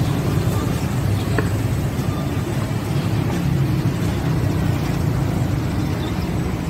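Steady low rumble of street ambience, dominated by road traffic noise.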